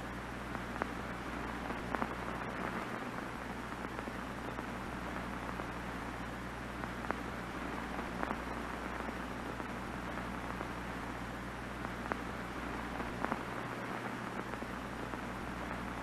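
Steady hiss of off-air television static with a low hum underneath and a few faint clicks scattered through it.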